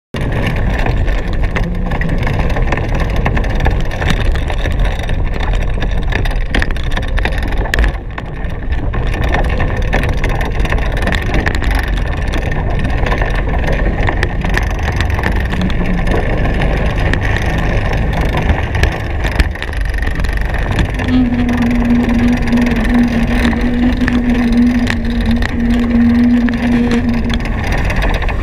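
Steady rushing noise of a Hobie Cat 16 catamaran sailing fast, mostly wind buffeting the microphone, with a steady humming tone for several seconds near the end.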